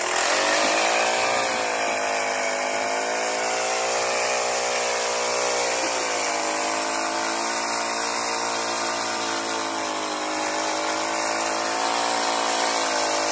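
Four-stroke brush cutter engine driving a gearbox and mini tiller head as it works the soil, running at high revs. It revs up right at the start, then its pitch sags and recovers a few times under load.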